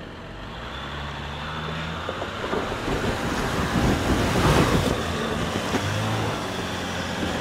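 Off-road vehicle's engine running as it crawls a trail obstacle, with a louder swell about halfway through.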